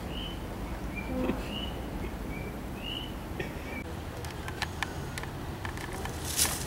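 A bird calling: a run of short high chirps, about two a second, for the first four seconds over a steady low background rumble. After that come scattered clicks and a louder rustle near the end.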